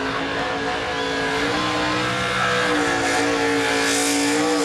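NASCAR stock car's V8 held at high revs during a victory burnout, its pitch stepping up about two and a half seconds in, with a hiss of spinning tyres that grows in the second half.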